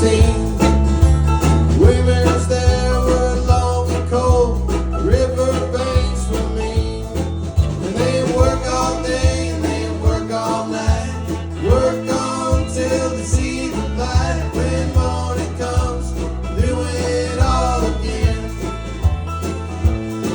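Country-bluegrass band music with plucked guitar over a steady bass. A lead line slides up into a held note every few seconds.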